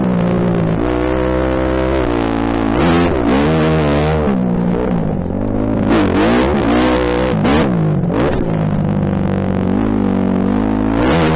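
Motocross dirt bike engine revving hard and dropping off, over and over, as the rider accelerates and backs off through the turns. Its pitch climbs and falls several times.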